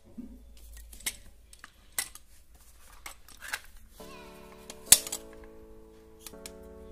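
Clicks and taps of a hard plastic drill-bit case being handled and its clear hinged lid opened, with the loudest snap about five seconds in. Background music comes in about four seconds in.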